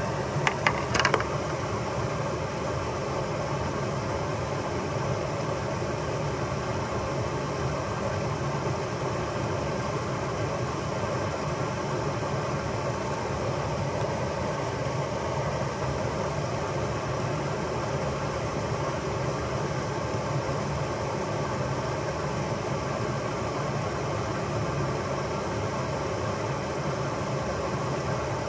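Steady rushing of water pouring over a small stone-dam spillway into a river pool. A few sharp clicks and taps come about a second in.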